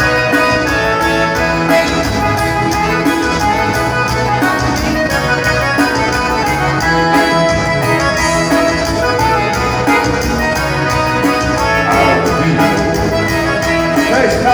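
Band music led by accordion over a steady beat.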